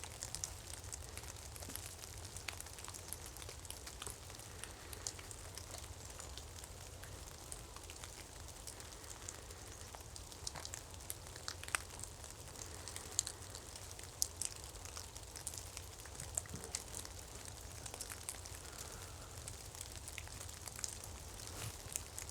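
Faint, irregular crackling and ticking, dozens of small sharp ticks scattered throughout, over a low steady rumble.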